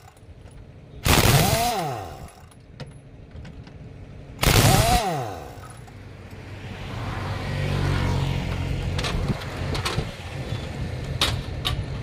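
Trolley-mounted pneumatic impact wrench loosening truck wheel nuts: two short loud blasts, about a second in and about four and a half seconds in, each followed by a falling whine as the tool spins down. A low hum swells in the second half, with a few light metallic clicks near the end.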